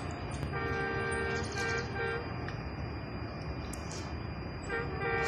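Train horn of an approaching express locomotive sounding in a series of toots: a longer blast about half a second in, two short toots around two seconds, and two more short toots near the end. A steady low rumble of the train runs underneath.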